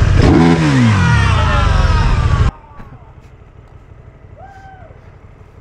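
KTM Super Duke GT's V-twin engine revved hard, its pitch falling as the revs drop back, loud. It cuts off suddenly about two and a half seconds in to a much quieter steady engine rumble.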